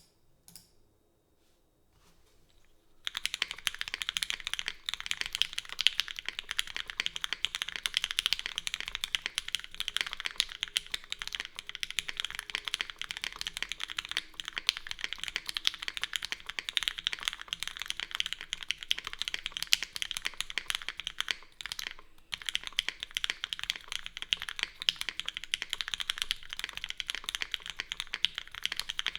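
Steady, fast typing on a Keycult No.2 custom mechanical keyboard with lubed Gateron CJ linear switches, GMK Norse keycaps and a full aluminium plate with no foam. It starts about three seconds in and pauses briefly about two-thirds of the way through.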